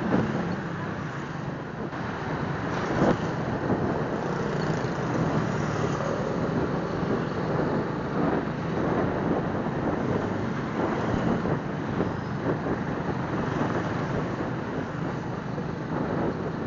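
Suzuki Smash 115 motorcycle's single-cylinder four-stroke engine running on the move, with wind rushing over the microphone and one sharp knock about three seconds in.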